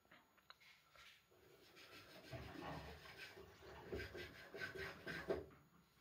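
Faint, irregular rubbing and swishing of wet laundry shifting inside a front-loading washing machine's drum, starting about a second in, with a sharper knock near the end.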